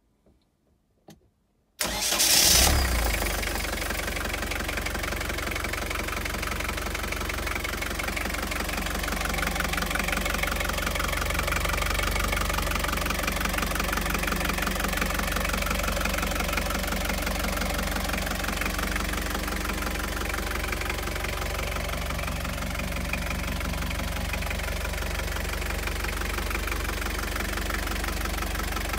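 Yacht's inboard marine diesel engine starting: a few faint clicks, then about two seconds in the engine cranks and catches with a loud burst and settles into a steady idle.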